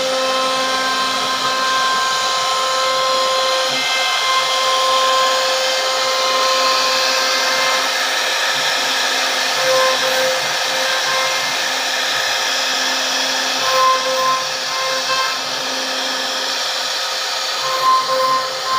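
CNC router spindle running at high speed with a steady whine as its bit routes a bead moulding into wood, over a hiss of cutting. The loudness swells briefly a few times in the second half.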